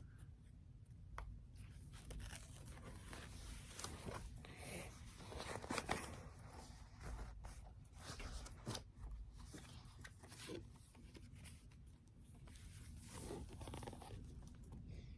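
Faint rustling and small clicks of a picture book being handled and its pages turned, over a low steady hum.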